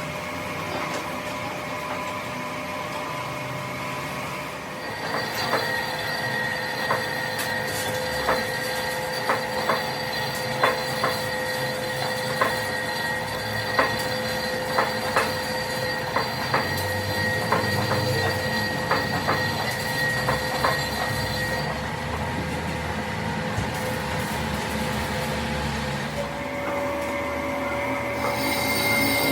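Metal being worked by a workshop machine: a steady high screech with several held tones. From about five seconds in until about twenty-one seconds in, irregular sharp clicks sound over it.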